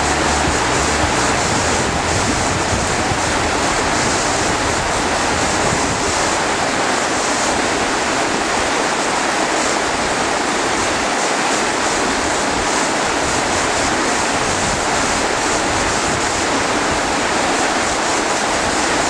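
River whitewater rapids rushing steadily, a continuous wash of churning water.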